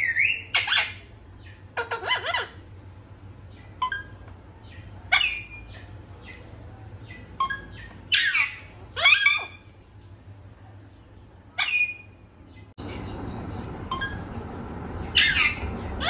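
A parrot squawking and whistling in short calls every second or two, several of them sweeping down in pitch.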